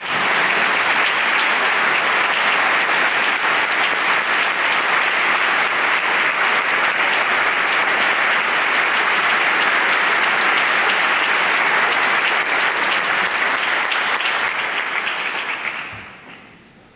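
Concert hall audience applauding steadily as performers walk on stage. The applause fades away near the end.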